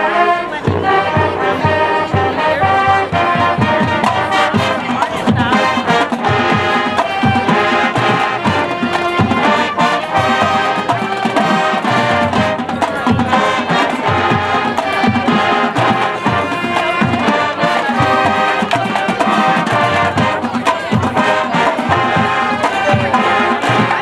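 High school marching band playing its field show: brass, including sousaphones, over drumline percussion with regular drum strikes.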